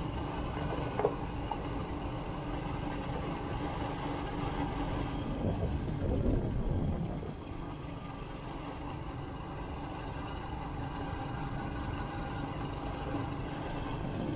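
A vehicle's engine running at a steady pitch over low road rumble. A sharp click comes about a second in, and a louder rush of low noise swells around six seconds in.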